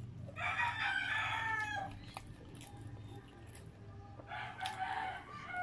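A rooster crowing twice: one long crow starting about half a second in, and another near the end.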